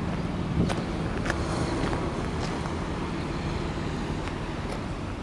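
Nissan 300ZX Twin Turbo's 3.0-litre twin-turbo V6 running as the car rolls slowly over gravel, with stones crackling now and then under the tyres.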